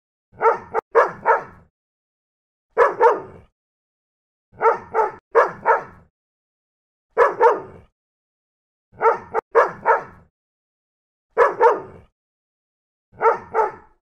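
Small dog barking in short groups of two or three barks, about every two seconds, with dead silence between the groups.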